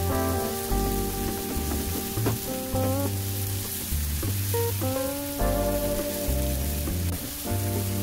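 Sliced green onions sizzling in perilla oil in a frying pan as a spatula stirs them, under background music with sustained notes and a bass line.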